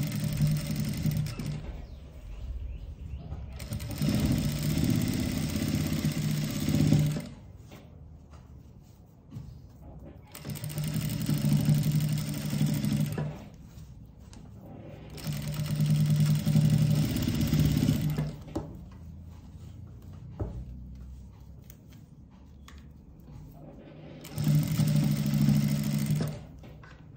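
JACK industrial single-needle lockstitch sewing machine running in five short runs of about two to three seconds each, with pauses between, as it stitches along the edge of a neckline.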